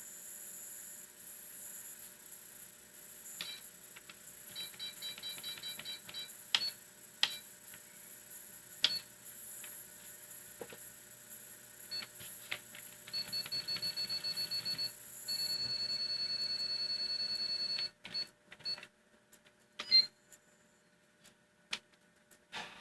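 A computer's built-in PC speaker giving high-pitched menu beeps: single beeps and quick runs of short beeps, then one long steady beep of about two and a half seconds. Sharp clicks sound between the beeps, and these are the loudest sounds.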